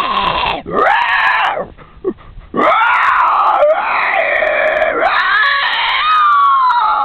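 A person singing in a high-pitched comic voice, drawing out the word "home" in long, wavering held notes that slide up and down, in four phrases broken by short pauses.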